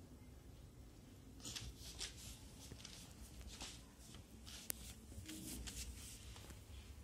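Faint scraping and rattling of a wooden drawer on its metal ball-bearing channel slides as it is released and worked out of the cabinet, with one sharp click about two-thirds of the way through.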